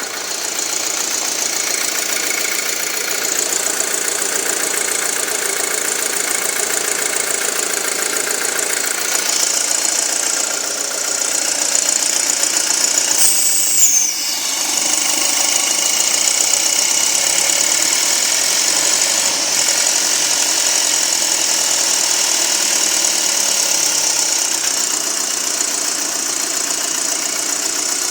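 2007 Audi A4 2.0T's turbocharged four-cylinder engine running at idle with a fast, even ticking, a noise the owner says has been getting worse by the day. About halfway through, a brief high squeal falls quickly in pitch.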